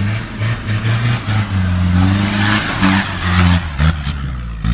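Small 4x4's engine revving in bursts, its pitch rising and falling as it drives through mud close by, with tyre and mud noise loudest in the middle.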